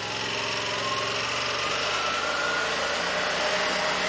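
Small vehicle engine running steadily as it travels, its pitch rising slightly over the first couple of seconds.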